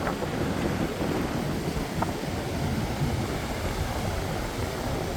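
Strong wind buffeting the microphone, a rough low rumble over the wash of surf.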